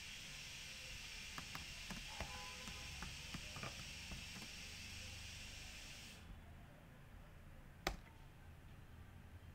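Faint computer keyboard clicks as a short line is typed, over a steady hiss that cuts off suddenly about six seconds in. One sharper, louder click comes near the end.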